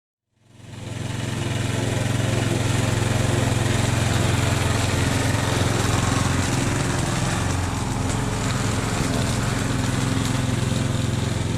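Masport lawnmower's petrol engine running steadily at constant speed, its flywheel key and pull rope just repaired. The sound fades in at the start and cuts off suddenly at the end.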